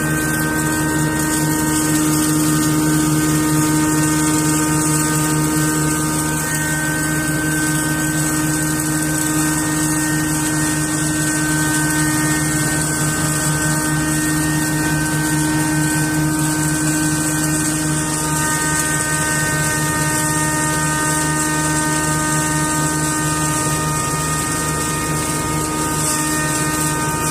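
Electric stainless-steel grain grinding mill running steadily while grain poured into its hopper is ground, a constant motor hum with a high hiss over it.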